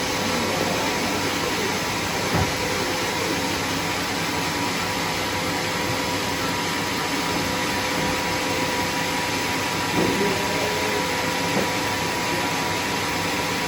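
Sawmill machinery running steadily: a constant mechanical rush with a steady hum and whine, and a brief knock a couple of seconds in.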